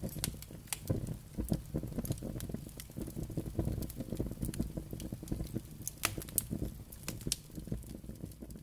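A fire crackling, with sharp irregular pops over a steady low rumble.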